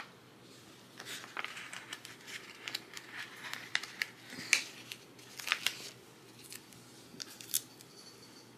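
Paper sticker sheets rustling and crinkling under the fingers as stickers are picked and peeled off by hand: a string of small, irregular crackles and ticks, busiest in the middle and thinning out near the end.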